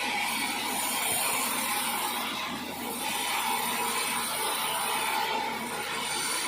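Sawmill saw running steadily, sawing acacia wood: a constant mechanical hum with a steady whine over it.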